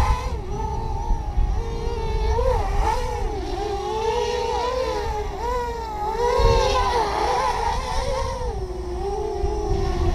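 OFM Hyper 330 racing quadcopter's electric motors and propellers whining in flight, the pitch rising and falling with the throttle, over a low rumble of wind on the microphone.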